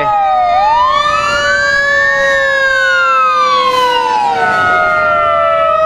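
Fire truck sirens wailing loudly. One siren makes a single slow rise and fall in pitch, over other sirens holding steady tones that sink slowly.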